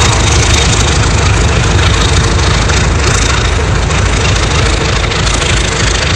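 Diesel locomotive engine running steadily, a low rumble with a constant hiss over it.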